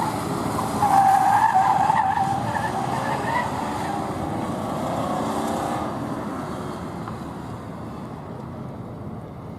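A car driven hard through a gymkhana course, its tyres squealing in wavering tones through the turns for the first three seconds or so. Then the engine and tyre noise fades as it moves away.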